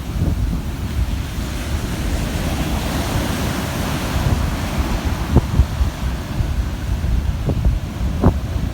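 Ocean waves breaking and washing on the shore, with wind buffeting the microphone in low rumbles. A wave's wash swells up through the middle, and a few short gusts thump on the microphone near the end.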